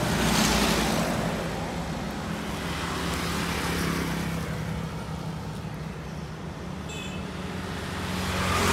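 Roadside traffic: motor vehicle engines running and passing. The noise swells about half a second in and again at the end.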